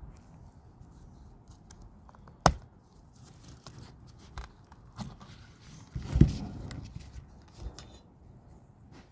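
Handling noises: scattered clicks and knocks, with a sharp knock about two and a half seconds in and a louder clatter with a brief rustle around six seconds.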